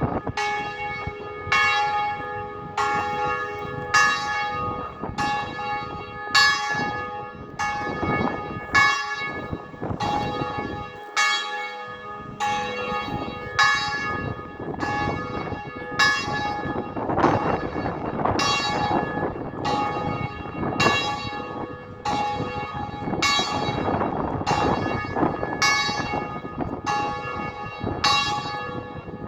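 Church bell struck repeatedly at an even pace, about once every second or so, each stroke ringing on into the next. Wind rushes over the microphone in uneven gusts beneath the bell.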